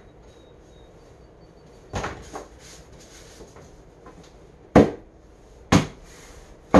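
Three sharp knocks on a particleboard furniture panel, about a second apart, after a couple of light taps about two seconds in: a hand tool striking the cabinet as the panel is worked into place.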